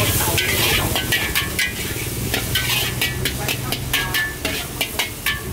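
A metal spatula scrapes and clanks against a wok many times as noodles are stir-fried, with a hissing sizzle underneath.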